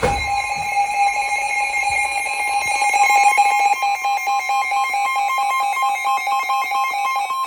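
Emergency Alert System attention tone sounding ahead of a severe thunderstorm warning: a loud, steady electronic alarm tone, with a second higher tone joining about a second in.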